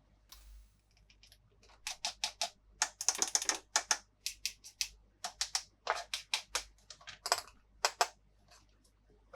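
Small plastic toy pieces being handled, tapped and clicked together: an uneven run of sharp clicks, with a fast rattle of clicks about three seconds in.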